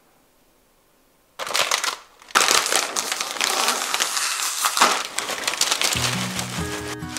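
Plastic snack bag crinkling, then crisp snacks pouring out of the bag into a bowl: a dense rustling and rattling that lasts about four and a half seconds. Guitar music comes in near the end.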